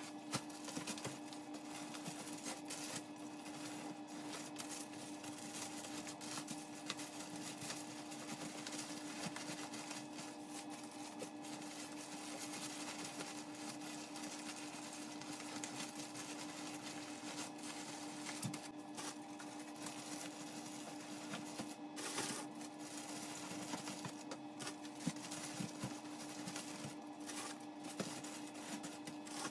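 Plastic-bagged items rustling and crinkling as they are handled and stacked into a cardboard box, with irregular light knocks, over a steady electrical hum.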